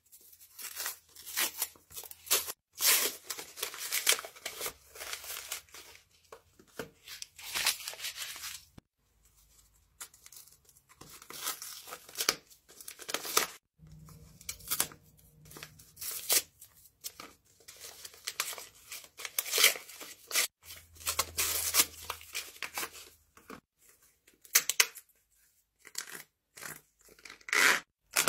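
A handmade paper candy-bar wrapper being torn open and crinkled by hand, in short, irregular bursts of ripping and rustling with brief pauses between them.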